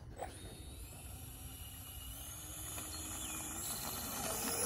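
E-Flite A-10 RC jet's twin electric ducted fans spooling up for the takeoff roll: a whine that climbs in pitch and grows steadily louder.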